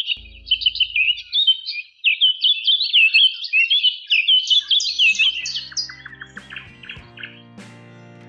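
Many small birds chirping rapidly in a dense chorus; about halfway through, background music with held notes and a low drone comes in under the chirping.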